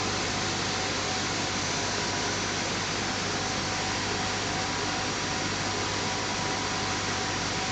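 Backwash water from a turbine condenser gushing and spraying out of the pipework and pouring into a trench: a steady rushing noise, with a faint, steady machinery hum under it.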